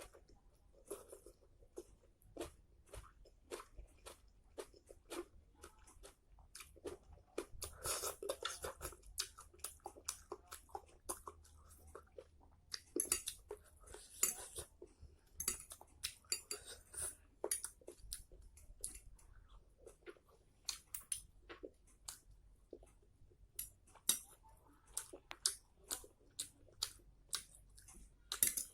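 Close-up chewing of mie nyemek noodles with chicken and egg: a steady, irregular run of short wet mouth smacks and clicks, thicker in a few spells.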